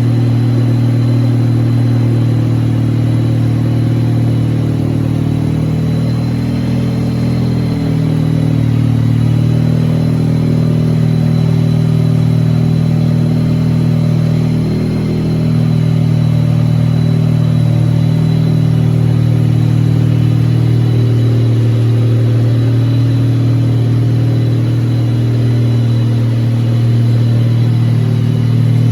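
The Wankelghini's Wankel rotary engine running at a steady speed, with a faint steady high whine above it.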